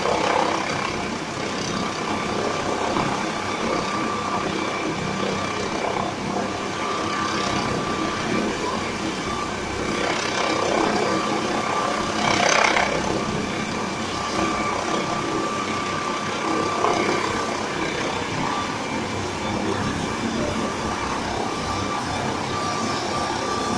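Air ambulance helicopter's turbine engines running on the ground: a steady whine with held high tones over a broad rush. There is one short louder swell about twelve seconds in.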